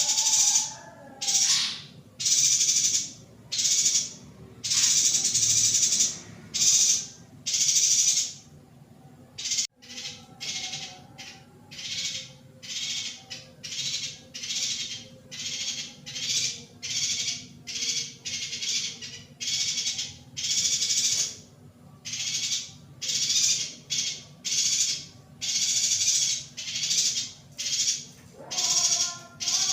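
Female yuhina calling: a long run of short, harsh, hissy chirps, about one or two a second, with a few clearer pitched notes near the start and again near the end.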